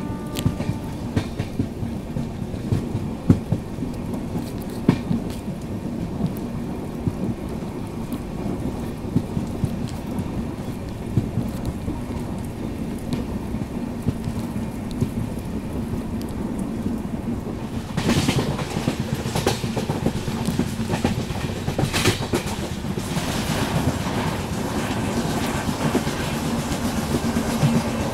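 Moving passenger train: a steady rumble and hum, with wheels clicking and clattering over the rails. The clatter grows louder from about eighteen seconds in.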